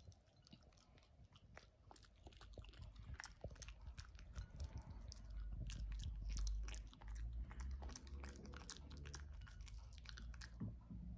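A cavoodle chewing and crunching pieces of roasted chestnut, a run of small sharp crunches and clicks. A low dull rumble swells in the middle.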